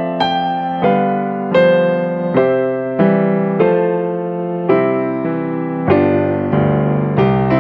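Yamaha CP4 Stage digital piano played with a piano sound: slow, sustained chords, a new chord or note struck about every second or a little faster, each ringing into the next.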